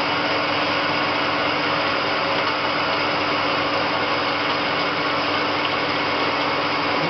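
CNC lathe turning a metal workpiece, the tool cutting under flood coolant: a steady machine whirr with a constant hum and the hiss of coolant and cutting.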